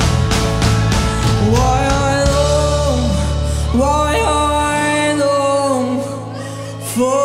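Live band music: drums pounding under a steady bass line, with long held, gliding sung notes coming in after about a second and a half. The loudness dips briefly near the end before a fresh drum hit.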